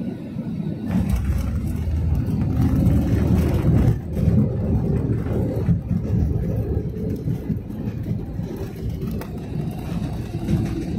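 Jet airliner cabin noise as the plane rolls on the ground: a steady low rumble of engines and wheels. It swells about a second in and eases back about four seconds in.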